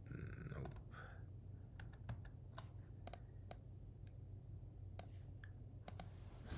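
Scattered keystrokes and clicks on a computer keyboard and mouse, irregular and faint, over a steady low electrical hum. A short vocal sound comes right at the start.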